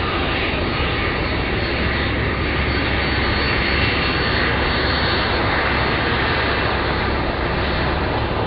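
Steady, loud drone of a Hercules C-130 turboprop transport aircraft running.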